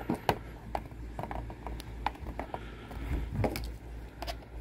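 Fingers working a rubber grommet into a drilled hole, trying to pop it into place: a run of small irregular clicks and taps, over a steady low hum.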